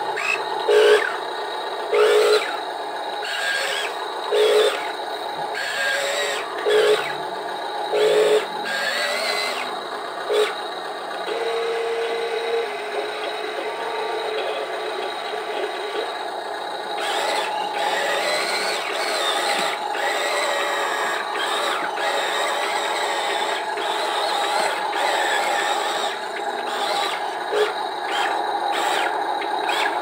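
Small electric motors and plastic gearing of a radio-controlled toy dump truck whining: a string of short bursts as the tipper bed is worked, then a steadier run later on as the truck drives.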